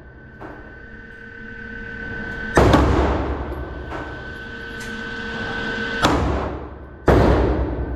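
Three 9mm shots from a Glock 19X pistol: one, then a pause of about three and a half seconds, then two about a second apart. Each ends in a long echoing decay from the indoor range. A faint steady high tone is heard between the shots.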